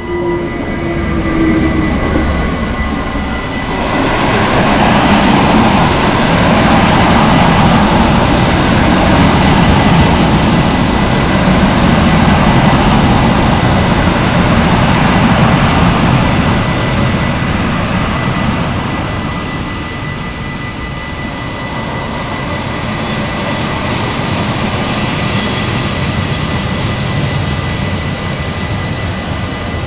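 Electric freight locomotive, a DB Class 189, passing close by, then a long mixed freight train of wagons rolling past with a continuous heavy rumble of wheels on rail. From a little past halfway a steady high-pitched wheel squeal rises over the rolling noise.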